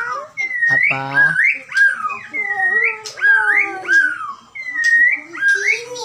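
White-rumped shama (murai batu, Bahorok type) singing: a continuous run of varied whistled notes that slide up and down in pitch, with a short harsh buzzy note about a second in.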